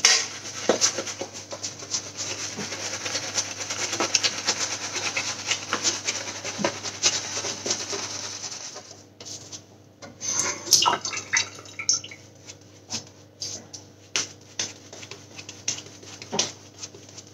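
Large synthetic shaving brush rubbing lather onto a stubbly face: a continuous scratchy swishing for about nine seconds, then shorter separate strokes with brief pauses.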